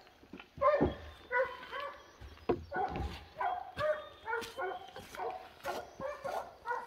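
Hunting hounds barking over and over, short calls at about two a second with no let-up.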